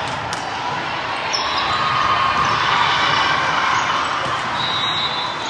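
Crowd chatter at a sports match, steady throughout, with a few sharp knocks.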